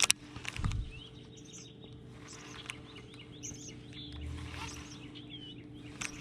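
Songbirds chirping and calling in short, repeated notes. A couple of sharp knocks and a low thump come in the first second, over a faint steady hum.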